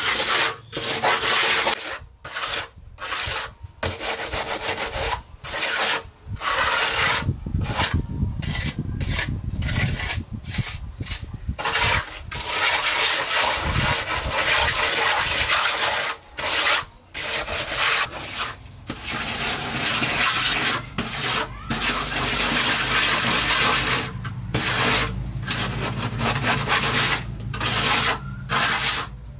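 Flat steel trowel scraping and smoothing wet cement mortar on a floor, in repeated strokes with short pauses between them.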